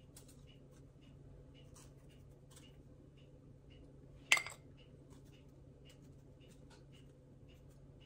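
A metal spoon clinks once, sharply, against a glass bowl of cinnamon sugar about four seconds in, amid faint light ticks of the spoon while the sugar is sprinkled.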